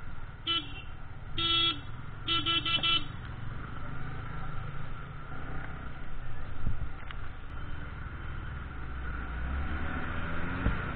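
A vehicle horn honks three times in the first three seconds, the last a quick run of short toots. Under it runs the steady noise of a motorcycle riding through rain-soaked traffic on a wet road.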